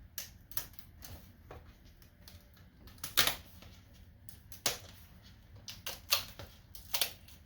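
A plastic pry tool working along the bottom seam of a Dell Latitude E5450 laptop's screen assembly, giving a series of irregular sharp clicks and snaps as clips and adhesive let go. The loudest snap comes about three seconds in.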